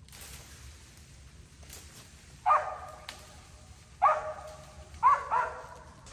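Squirrel-hunting dog barking: four short, sharp barks, the first about halfway through and the last two close together near the end.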